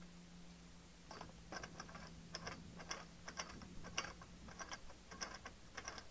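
Faint, irregular clicking, a few clicks a second, starting about a second in, over a low steady hum.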